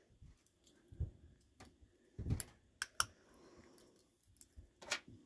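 Small metal barrette clip parts clicking and tapping against each other as they are handled and fitted back together, about eight light, irregular clicks.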